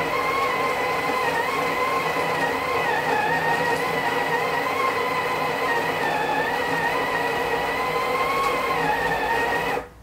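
Gevi GECGI406B-U burr coffee grinder running and grinding beans at a fine espresso setting, a steady whine that wavers slightly in pitch. It cuts off by itself near the end as its 10-second timer runs out.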